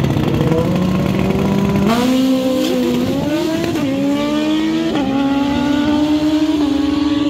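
Drag-racing motorcycle engine running hard down the strip. A steady note for about two seconds, then a sharp rise and a run of climbing pitch broken by sudden drops at each of several upshifts.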